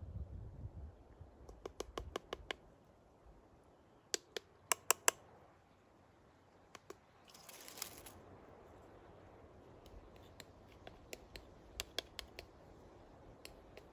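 Ground coffee being poured and spooned into a stainless steel moka pot filter basket: scattered sharp taps and clicks of a cup and a wooden spoon against the metal, with a loud cluster of four or five taps about a third of the way in. A short rustling hiss of pouring grounds comes a little past halfway.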